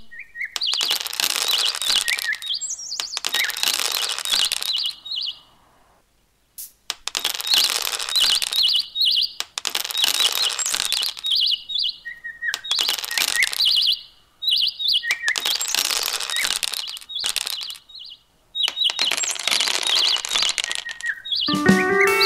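Small polished decorative pebbles clicking and clinking against each other as they are handled and set down on sand, in busy stretches of a few seconds with short breaks between them.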